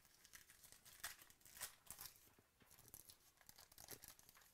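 Foil trading-card pack wrapper being torn open and crinkled by hand: faint, irregular crackling and rustling, loudest about a second in.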